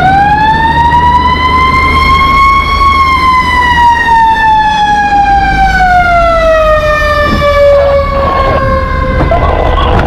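Fire engine siren wailing loudly: one slow sweep that rises for about three seconds and then falls gradually for the rest, over a steady low engine rumble.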